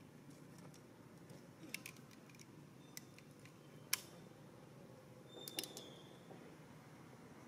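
Quiet low background with a handful of sharp clicks, the loudest about four seconds in, and a brief high tone at about five and a half seconds.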